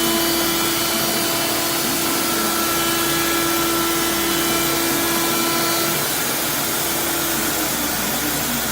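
CNC router spindle milling a white ABS plastic sheet: a steady machine whine over cutting hiss. About six seconds in the strongest tone drops away and the sound shifts slightly.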